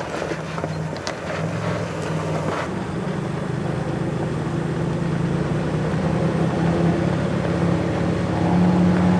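Off-road 4x4 vehicle's engine running steadily while driving a rough dirt trail, with knocks and rattles in the first few seconds. The engine note rises and gets louder near the end.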